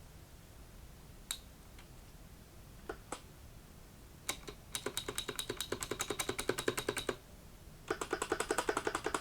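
Keystrokes on a Corsair K95 mechanical keyboard with clicky blue switches. A few single key presses come first, then two fast, even runs of clicking keystrokes at about ten a second: one around the middle and another starting near the end.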